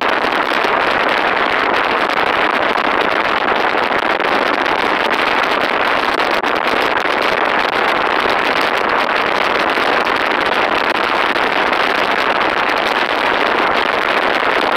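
Steady rush of wind and road noise, heard from inside a moving vehicle.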